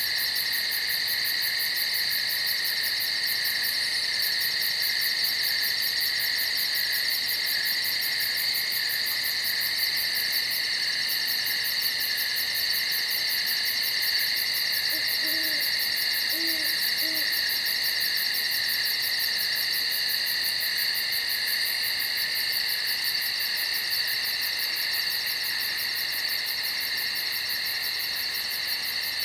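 Night woodland ambience: a steady, high-pitched chorus of night insects with a fast, very high pulsing. About halfway through come three short, faint, low owl hoots in quick succession.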